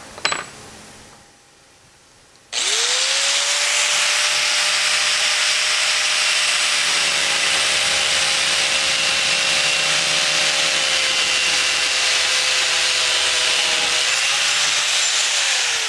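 Handheld angle grinder cutting through a steel ejector pin held in a bench vise. It starts suddenly about two and a half seconds in, then runs steadily: a harsh grinding hiss over a motor whine. Near the end the pitch drops as it winds down.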